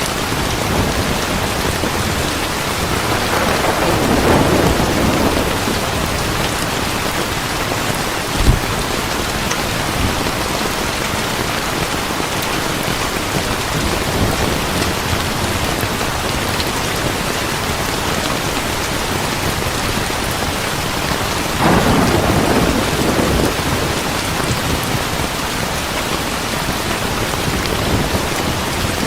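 Heavy rain falling steadily, with thunder rolling twice, about four seconds in and again a little past twenty seconds. A single short, sharp crack about eight seconds in.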